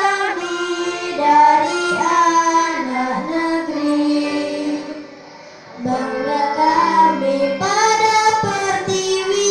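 A girl singing an Indonesian song into a corded microphone, with instrumental accompaniment underneath. Her voice breaks off briefly about five seconds in, then the next phrase begins.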